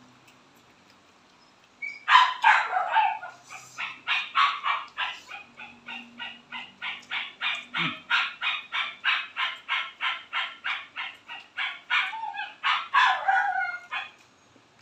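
An animal calling over and over in a fast, even rhythm, about three calls a second, starting about two seconds in and stopping shortly before the end.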